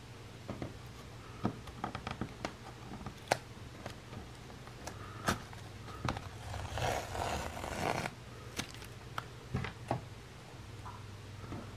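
Hands handling a stretched canvas on a wooden table: scattered light clicks and taps, with a longer rustling scrape about six to eight seconds in as a hand passes close to the camera. A faint low hum runs underneath.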